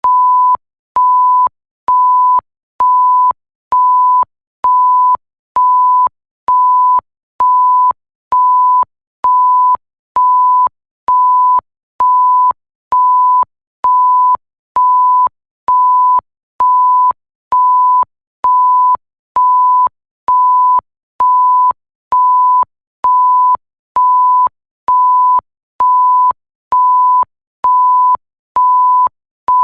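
Repeated electronic censor bleep: a pure tone near 1 kHz switching on and off at about one beep a second, each beep a little over half a second long, with a faint click as each one starts and stops.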